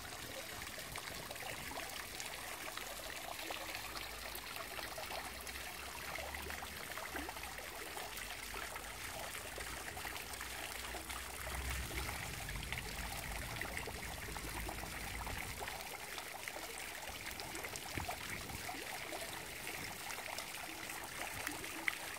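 Tiered ornamental fountain: water spilling from its bowls and falling in drops into the basin pool, a steady splashing trickle.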